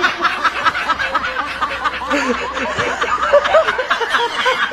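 Continuous hearty laughter, several voices overlapping.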